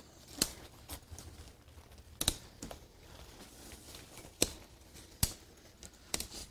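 Plastic frame clips of a dome tent snapping onto its fiberglass poles: about half a dozen sharp clicks, spaced irregularly.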